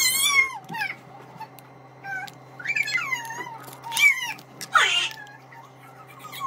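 A toddler's short, high-pitched squeals and whines, four or five of them, each bending up and down in pitch, over a faint steady hum.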